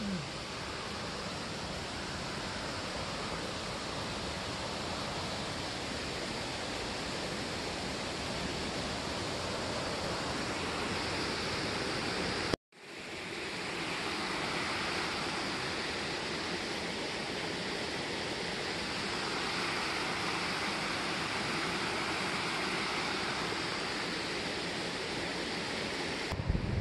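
Swollen mountain stream rushing fast over and between boulders, a steady, even roar of water running high after weeks of rain. It breaks off for an instant near the middle, then resumes.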